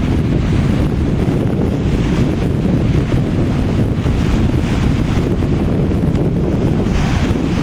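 Wind buffeting the camera's microphone: a steady low rumble, with a few gusts that swell higher.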